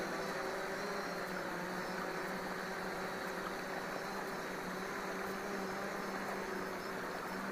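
DJI Phantom 4 Pro quadcopter in flight: a steady propeller hum over an even background hiss.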